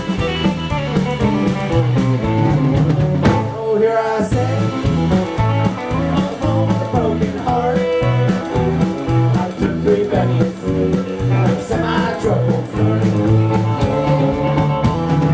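A live band playing the song, led by electric guitar with fiddle behind it, over a steady beat.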